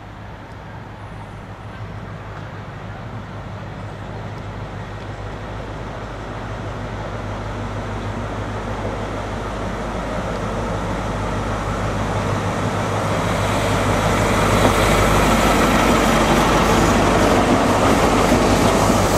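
Class 43 HST power car's diesel engine approaching and growing steadily louder as the InterCity 125 runs into the platform. Near the end the coaches roll past close by, with some wheel clicks.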